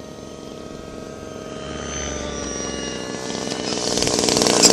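Small model-aircraft engine running steadily, with a propeller buzz that grows louder over the last second or two as it comes closer.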